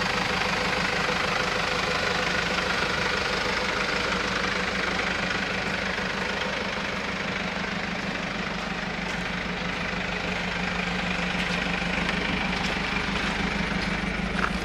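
Mercedes-Benz Sprinter van's diesel engine idling steadily, with a short click near the end.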